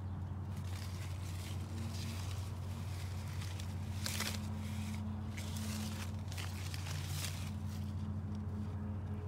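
Intermittent rustling and brushing among leaves, the loudest rustle about four seconds in, over a steady low hum.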